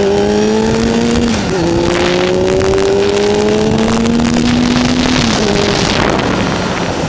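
Kawasaki sport motorcycle engine pulling uphill. Its pitch climbs steadily and drops sharply at gear changes, about a second and a half in and again about five seconds in, then holds steady. Heavy wind buffets the microphone throughout.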